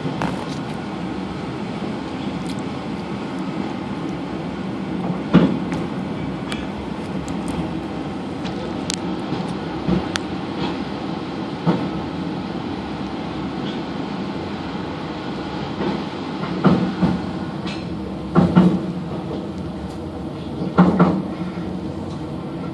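Train carriages running along the track through a rail tunnel: a steady rumble of wheels and coaches, with occasional clunks and rattles, the heaviest ones in the last few seconds.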